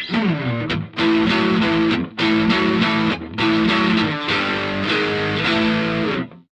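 Electric guitar played through a BOSS OS-2 OverDrive/Distortion pedal, giving a driven, distorted tone. It plays a phrase of sustained chords with a few short breaks, then stops about six seconds in.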